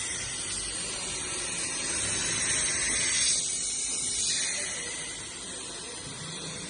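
Timing belt double-teeth grinding machine running, a steady hiss of the belt being ground. The hiss eases somewhat about three and a half seconds in.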